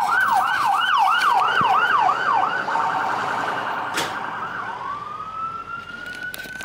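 Fire truck's electronic siren: a fast yelp sweeping up and down about three times a second, changing partway through to a slower wail that rises and holds, growing fainter as the truck moves off.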